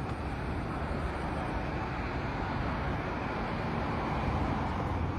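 Steady vehicle noise, an even low hum with no distinct knocks or changes.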